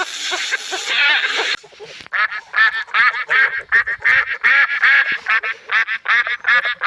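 Birds calling in a fast run of short, repeated calls, several a second. It starts about two seconds in, after a cut from a different animal clip with background hiss.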